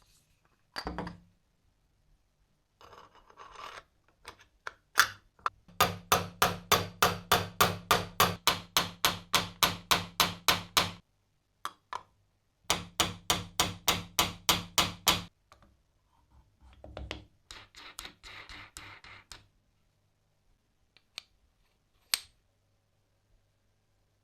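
Antique hand-cranked coffee grinder being turned by its crank, giving a regular grinding stroke about three and a half times a second in two runs of several seconds, with knocks and scrapes from handling the grinder around them.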